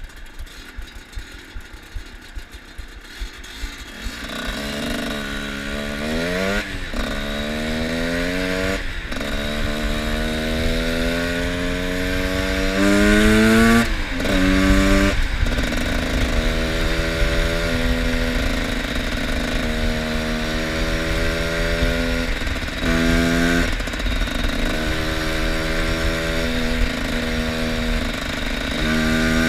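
Two-stroke enduro motorcycle under way, quiet at first. About four seconds in it revs up, climbing in pitch through several gear changes. It then runs at steadier revs with repeated short dips as the throttle is shut and reopened.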